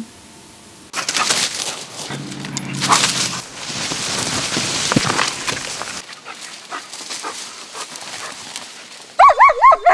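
A search-and-rescue dog pushing through tall grass and brush: a rustling, swishing of vegetation, loudest in the first half. Near the end the dog gives a quick run of four high yips or whines.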